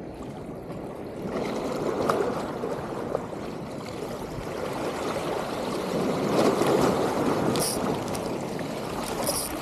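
Rough sea washing against breakwater rocks, surging twice, with a few short sharp clicks near the end.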